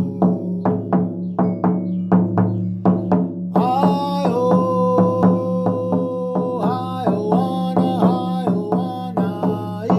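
Drum beaten in a steady rhythm, about three strokes a second, over a continuous low drone. A held melodic tone sounds over it from about a third of the way in to past the middle.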